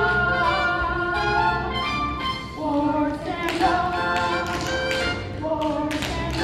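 Show-tune backing music in an instrumental passage, with held chords over a bass line. From about halfway there are sharp percussive taps and hits.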